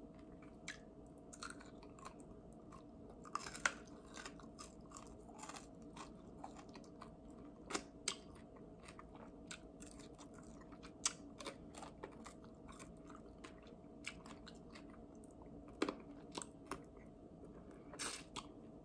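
A person chewing and biting barbecue chicken wings, nibbling meat off the bone: faint, irregular mouth clicks and crunches, with a few louder bites scattered through.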